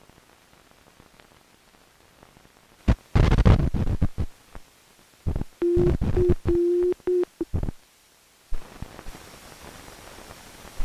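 Harsh bursts of loud static-like noise with crackles and clicks. About halfway through, a steady mid-pitched beep sounds over the noise for about a second and a half, broken twice. Near the end the sound drops to a faint hiss with a thin high whine.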